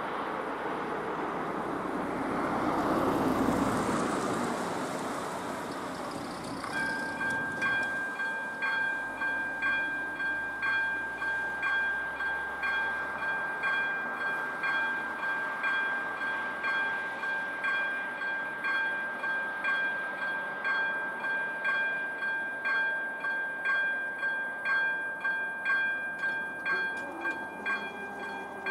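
A car passes in the first few seconds. About seven seconds in, the level crossing's AŽD ZV-02 electronic warning bell starts, a steady pulsing electronic ringing, the signal that a train is approaching.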